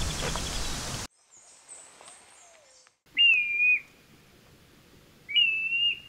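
Black-bellied plover giving two loud, drawn-out whistled calls about two seconds apart, each rising into a long, nearly level note. Before them, a steady rushing noise cuts off about a second in.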